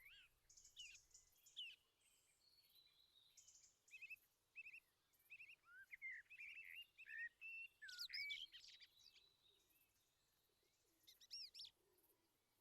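Faint birdsong: small birds chirping and calling, with a run of quick repeated chirps from about four seconds in, a louder cluster of calls around eight seconds and a few more near the end.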